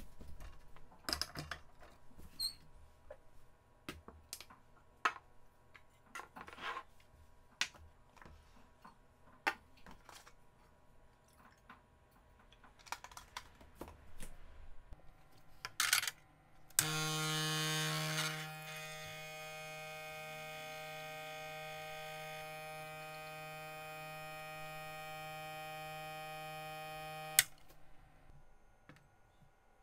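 Scattered clicks and knocks of cups, a steel pitcher and the portafilter being handled at a Gaggia Classic Pro espresso machine. About 17 seconds in, the machine's vibratory pump starts with a loud buzzing hum while pulling an espresso shot. It drops to a steadier, quieter hum a second and a half later, runs for about ten seconds and stops with a click.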